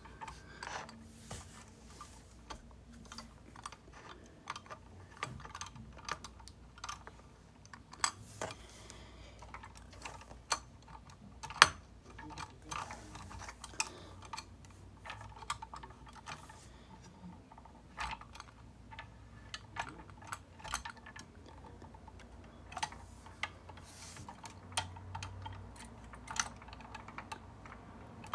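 Irregular clicks and clacks of a toy front-loader garbage truck being handled, its lifting arms and bin worked by hand, with one louder knock about halfway through.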